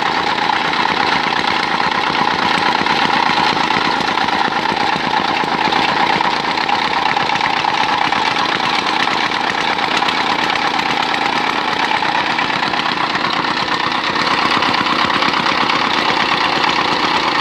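Small Shark petrol engine of a hand-guided ground tamper running steadily, its ram pounding rapidly into rubble and soil.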